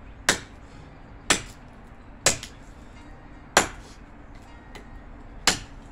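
Machete chopping into a wooden branch for firewood: five sharp strikes at uneven intervals of one to two seconds.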